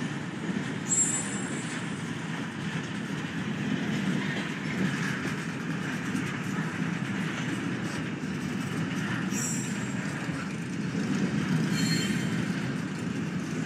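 Freight train cars rolling past with a steady low rumble of wheels on rail, broken by brief high-pitched wheel squeals about a second in, around nine and a half seconds, and again near twelve seconds.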